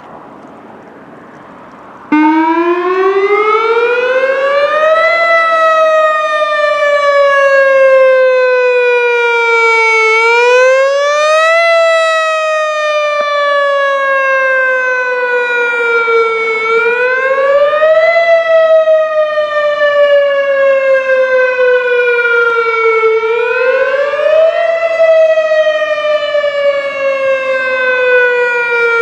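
Whelen WPS 3016 electronic outdoor warning siren sounding its wail tone during a monthly tornado siren test. It cuts in suddenly about two seconds in, after a faint hiss. The pitch then climbs quickly and falls slowly, over and over, about once every six and a half seconds.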